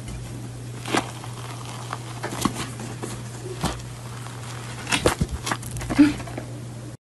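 Crust of a chocolate lava cake tearing as hands pull it apart: soft crackling and a few sharp crackles, over a steady low hum.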